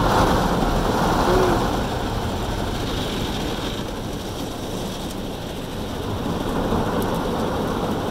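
Automatic car wash spraying and scrubbing the car, heard from inside the cabin as a steady rushing noise, with one brief squeak about a second and a half in.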